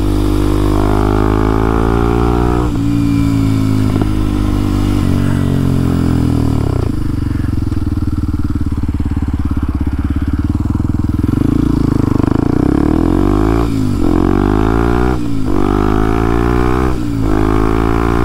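Kawasaki KLX230SM's single-cylinder engine, with an O2 sensor delete and a Norifumi T-Rex exhaust, pulling hard through the gears: the revs climb and drop back with each upshift several times in the first seven seconds. It holds a steadier lower note for a few seconds, then runs up through three more quick shifts near the end.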